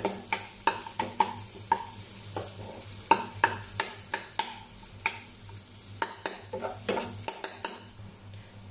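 Chopped garlic, bird's-eye chili and ginger sizzling lightly in a little hot oil in a non-stick wok while they are stir-fried until fragrant. A metal spatula taps and scrapes the pan in irregular clicks, about two a second.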